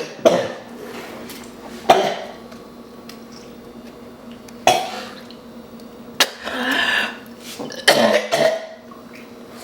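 A woman coughing and retching in a string of sudden coughs a second or two apart, with a longer heave near the middle. She is gagging on a stomach full of Sprite and bananas, failing to keep it down.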